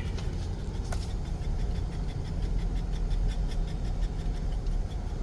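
A car rolling slowly, with a steady low engine and road rumble. There is a single sharp click about a second in.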